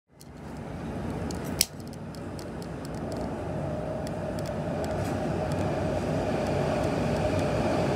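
A jet-flame gas lighter clicks as it ignites, about a second and a half in, then its flame hisses steadily while it lights a mosquito coil.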